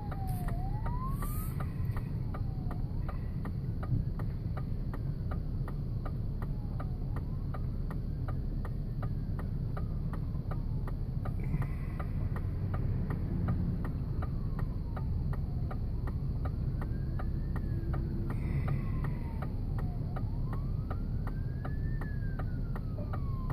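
An emergency vehicle siren wailing, gliding slowly up and down over and over, with a steady low rumble beneath it.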